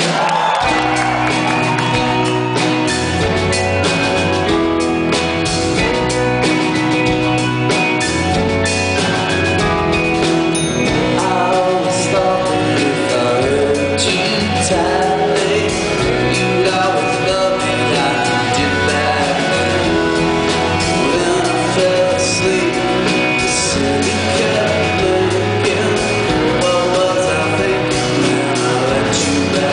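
Live rock band playing: strummed acoustic guitar and drum kit, with a man singing.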